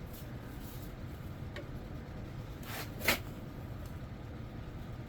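Small handling noises from hand work on the engine's cam timing: a few faint clicks and a short scraping rattle about three seconds in, over a low steady background hum.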